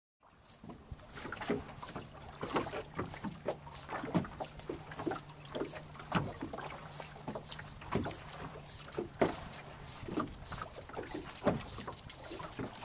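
Small waves lapping and slapping against the hull of a small boat in irregular knocks and splashes, with a faint steady low hum underneath through the middle.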